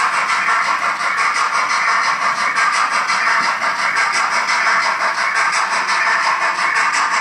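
Roco BR 01 H0 model steam locomotive running with its digital sound decoder, a fast, even steam chuffing over a steady hiss and the train's running noise on the track.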